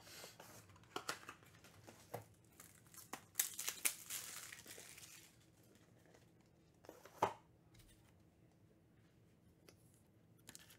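Crinkling and rustling of wrapper packaging being handled, with scattered sharp clicks; the crinkling is densest about three to five seconds in, and a single knock comes near seven seconds.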